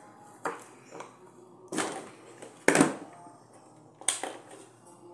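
Pliers and the wired field coil and trigger switch of a stripped-down electric drill being handled on a bench: a few separate short clicks, knocks and scrapes, the loudest nearly three seconds in.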